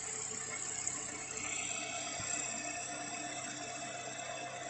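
Milling machine running with a 12 mm end mill cutting a slot as the table is wound in by hand: a steady hum and hiss with several held tones, a higher tone joining about a second and a half in.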